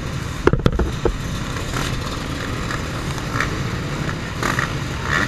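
A pack of motocross bikes running together at a race start, a dense steady engine din. A few sharp knocks stand out in the first second.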